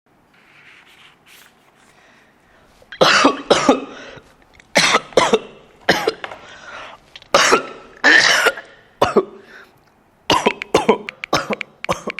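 A person coughing in repeated fits, starting about three seconds in: harsh coughs in clusters of two to five, with short pauses between the clusters.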